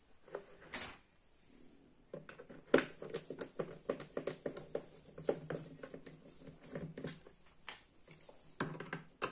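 Screwdriver turning out the screws of a black plastic water-purifier controller case, giving a fast, uneven run of small clicks and scrapes from about two seconds in, after a couple of light taps.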